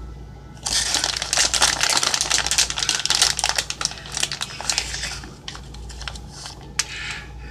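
Plastic shredded-cheese bag crinkling as it is squeezed and handled. A dense crackling starts about a second in and thins to scattered crinkles near the end.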